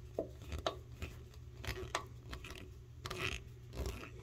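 Faint, irregular clicks and scrapes of a hand screwdriver turning a stainless screw into an expansion nut in a toilet's seat-bolt hole; the screw is getting tougher to turn as the nut expands and grips the hole.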